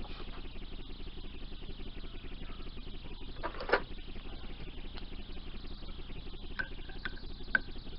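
A socket and wrench clinking on a motorcycle's clutch spring bolts: a louder click about three and a half seconds in, then three short metallic clicks near the end, over a steady background noise.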